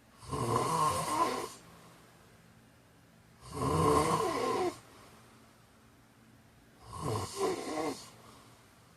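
A man snoring: three long snores, one about every three and a half seconds, with quiet gaps between.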